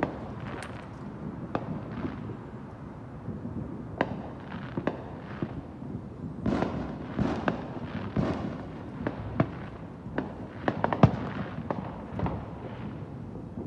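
Fireworks going off in a dense, irregular barrage of bangs, some sharp and short, some drawn out, with the loudest cluster about eleven seconds in.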